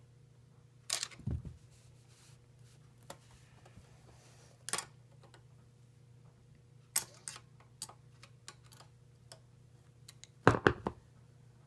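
Screwdriver turning a grounding screw in a stack of steel electrical boxes: scattered clicks, scrapes and knocks of metal on metal, the loudest cluster near the end.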